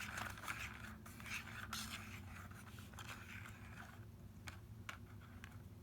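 Faint scraping and a few light clicks over a low, steady hum.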